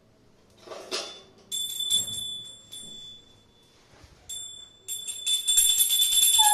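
A small brass puja hand bell (ghanti) being shaken during evening lamp worship, ringing with a bright high tone in short spells with brief pauses, then ringing continuously and fast for the last second and a half. A brief knock comes about a second in, before the ringing starts.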